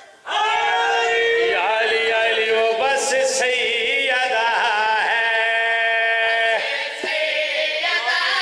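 A man's voice chanting devotional qasida verses in a melodic sung style, holding long notes that bend and slide between phrases.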